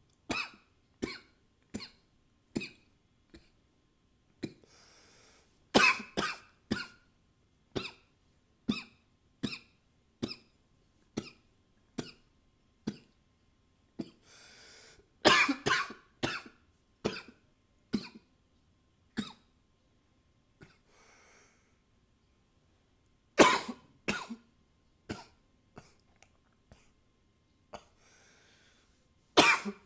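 A man coughing over and over: single short coughs about once a second, broken every eight seconds or so by a harder bout of several coughs in quick succession, with breaths drawn in before the bouts.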